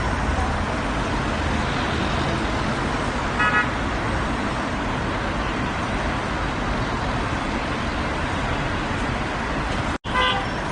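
Heavy road traffic running steadily, with a car horn giving two short toots about three and a half seconds in. The sound cuts out for an instant near the end.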